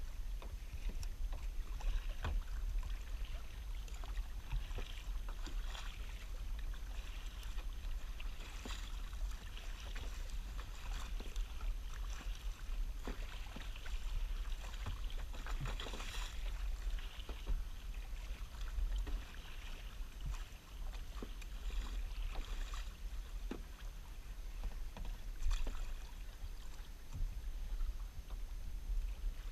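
Kayak paddle strokes splashing and water lapping against the hull, in irregular swishes every couple of seconds, over a steady low rumble.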